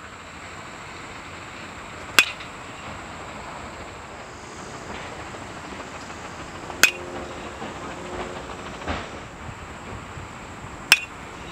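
Baseball bat hitting tossed pitches during batting practice: three sharp cracks with a short metallic ring, about four seconds apart, over a steady outdoor hiss.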